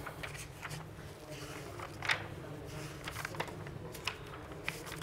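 Quiet room tone with a steady low hum, broken by a few soft clicks and rustles of handling, the loudest about two seconds in.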